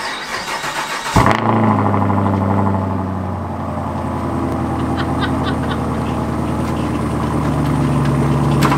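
Chevrolet Camaro's engine cold-starting: the starter cranks for about a second, then the engine catches with a sharp rev and settles into a steady fast idle.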